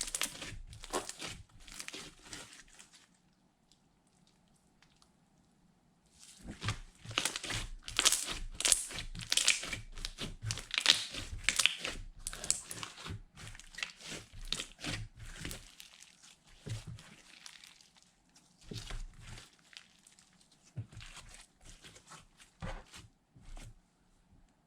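Slime being squished and kneaded by hand, giving dense crackling, popping clicks. It stops for about three seconds shortly after the start, then resumes thickly and thins out to scattered pops toward the end.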